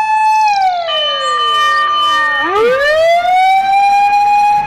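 Fire engine siren wailing: a held tone that starts to sink about half a second in, bottoms out past the middle, then winds back up and holds again.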